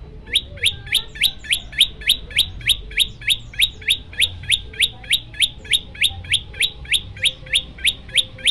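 Common tailorbird (prenjak lumut) giving its rapid repeated 'tembakan' call: a long, even run of sharp, high chirps, about three a second, starting a moment into the sound.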